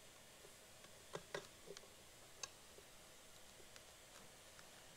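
Near silence with a few faint clicks and light taps, a small cluster about a second in and another click about two and a half seconds in, from subwoofer parts being handled during the plate amp swap.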